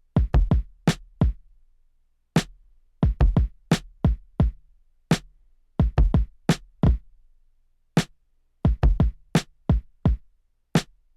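Drum-sample beat from a teenage engineering OP-1 Field played on its own: sharp hits in uneven clusters, with two different kick-drum samples used to make an accent-like effect. No melody or bass plays with it.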